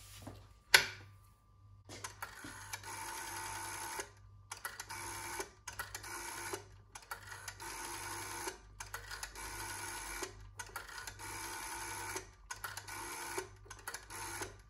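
Black bakelite rotary-dial telephone being dialled. The dial is wound round and runs back with rapid clicking, digit after digit, each one a second or two long with a short pause between. There is a sharp knock about a second in.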